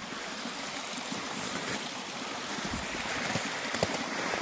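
Steady rush of a stream's running water, with low thuds of wind buffeting the microphone.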